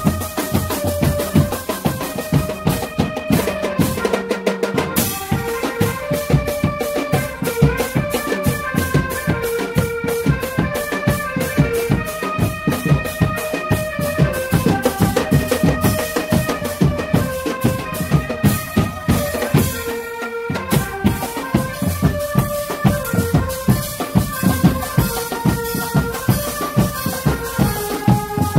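Drum band of marching bass drums and snare and tenor drums playing a steady beat under a stepping melody line. The beat breaks off briefly twice, about four and about twenty seconds in.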